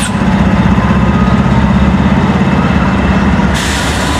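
Norfolk Southern GE Dash 9 (C44-9W) diesel-electric locomotive passing close by, its 16-cylinder diesel running with a steady, fast-pulsing low drone. Near the end the engine note drops away and a broader rushing rail noise takes over as the next unit comes by.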